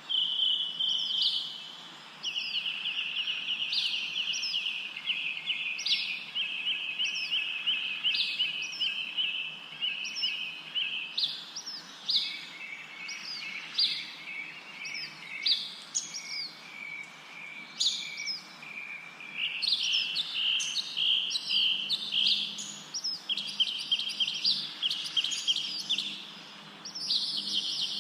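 Birds chirping and singing continuously: fast repeated trills mixed with short, high notes that slide downward.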